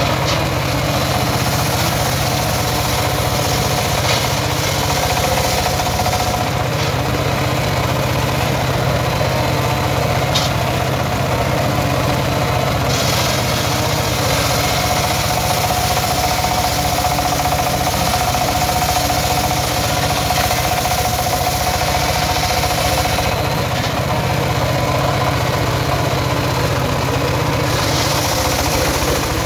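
Homemade circular sawmill driven by a single-cylinder diesel engine, running steadily while the blade rips a log lengthwise. A steady whine comes and goes twice as the blade cuts.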